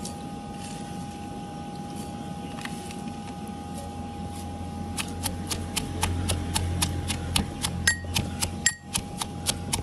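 Steel pestle pounding fried bitter gourd seeds and peels in a stainless steel mortar. The first half holds only soft handling as the seeds and peels are dropped in; about halfway through, regular sharp metallic clinks begin, about four a second, some with a brief ring.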